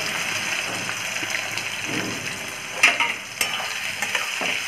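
Sliced onions sizzling as they fry in hot refined vegetable oil, a steady hiss, with two sharp knocks about three seconds in.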